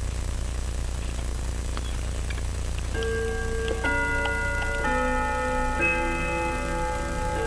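Steady low hum with a few faint small taps, then about three seconds in a slow chime-like melody starts: sustained bell-like notes, several sounding together, changing about once a second.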